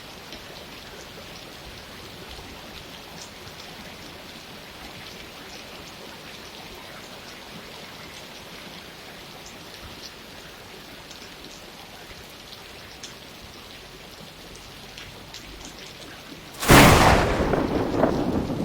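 Steady rain with scattered drip ticks, then near the end a sudden loud clap of thunder that fades over a couple of seconds.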